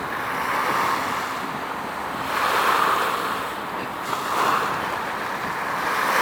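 Waves washing and wind on the microphone: a rushing noise that swells and fades every couple of seconds.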